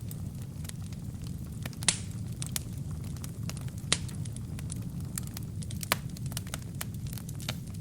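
Wood fire burning in a fireplace: a steady low rumble of flame with frequent small crackles of burning kindling, and three louder pops about two seconds apart.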